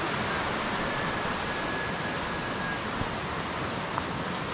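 Steady rushing of a nearby stream, an even unbroken hiss of flowing water. A faint thin high tone is held for a couple of seconds about a second in.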